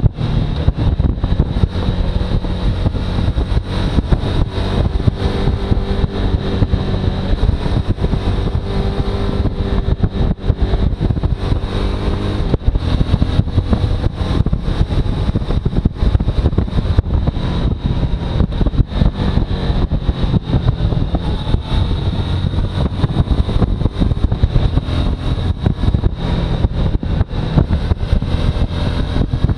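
Suzuki V-Strom motorcycle on the move, its engine running with pitch drifting up and down under heavy wind rush on the microphone.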